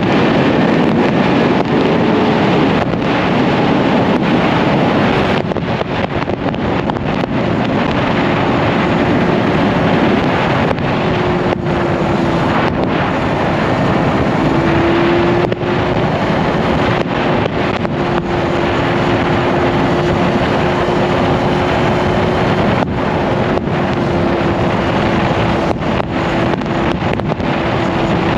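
Heavy wind rushing over a motorcycle rider's microphone at road speed, with the motorcycle's engine droning steadily underneath.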